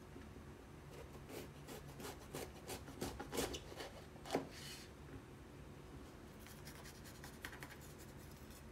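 A kitchen knife cutting through a red bell pepper on a wooden cutting board: a run of soft crunching, scraping strokes, with the sharpest click about four and a half seconds in, then lighter cutting near the end.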